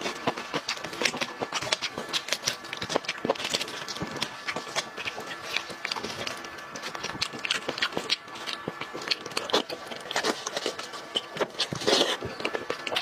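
Eating sounds: braised meat being torn apart by hand in plastic gloves and chewed, a rapid run of wet clicks and crackles, loudest near the end as a bite goes into the mouth.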